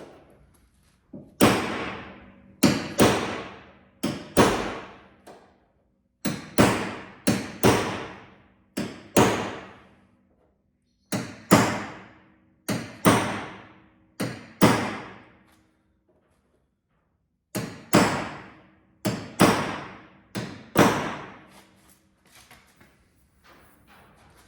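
Hammer blows on a blunt punch, pressing imitation spot-weld dimples into the steel outer rear wheel-arch panel of a Honda Integra DC2. The sharp metallic strikes each ring out briefly and come in four runs of several blows with short pauses between.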